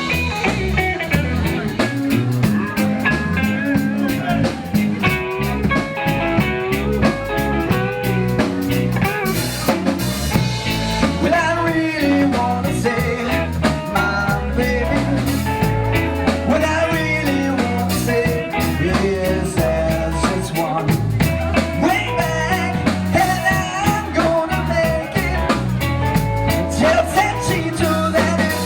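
Rock-and-roll band music with a steady beat.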